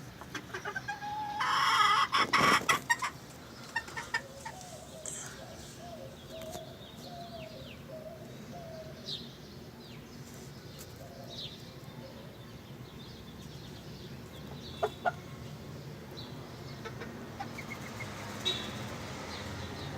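Bantam chickens clucking softly in a run of short low notes, with a loud, noisy burst about two seconds in and a few sharp clicks later.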